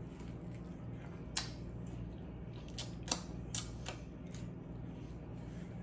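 Close-miked chewing of a bite of grilled pork chop: about half a dozen sharp crunches and mouth clicks, most between one and four and a half seconds in, over a steady low hum.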